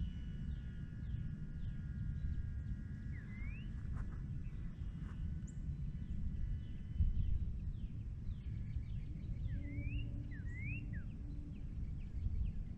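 Wind rumbling on an outdoor microphone, with a brief stronger gust about seven seconds in. Over it, birds chirp: short rising and falling calls, busiest near the start and again toward the end.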